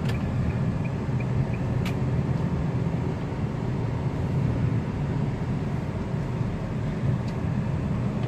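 Steady engine and road rumble of a car driving in traffic, heard from inside the cabin, with a sharp click near the start and another about two seconds in.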